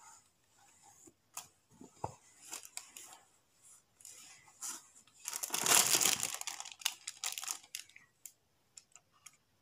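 Plastic clothing packaging crinkling as it is handled, loudest for a second or two around the middle, with soft rustling and small clicks of cloth being folded around it.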